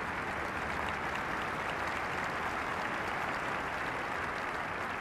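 Stadium crowd applauding: a steady wash of clapping from the stands.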